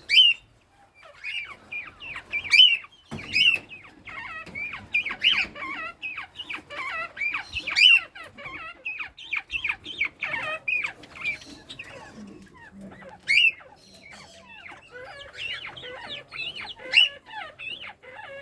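A group of northern bobwhite quail calling: a dense run of short, overlapping chirping calls, with a few louder calls standing out now and then.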